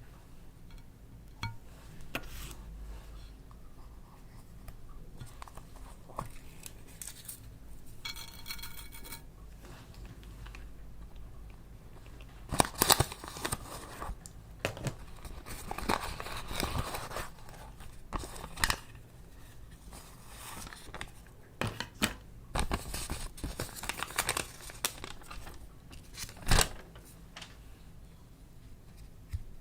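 Hand-handling sounds up close: irregular bursts of tearing and crinkling with sharp clicks, busiest in the second half, and a brief squeaky pitched sound about eight seconds in.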